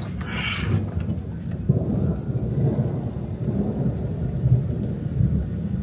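Thunder from a passing thunderstorm, a continuous low rolling rumble, with a short higher burst of noise about half a second in.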